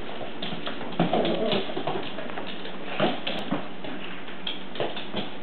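Small dogs' claws clicking and tapping unevenly on a hardwood floor as they scamper about, with a few brief dog yips mixed in.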